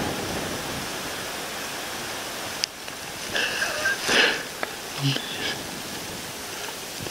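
Steady rushing wind noise, with a few short pitched sounds a little past the middle.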